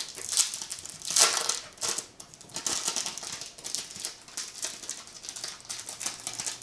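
Plastic sleeve and paper postcards crinkling and rustling as they are handled, in irregular scratchy strokes, a few louder ones in the first two seconds.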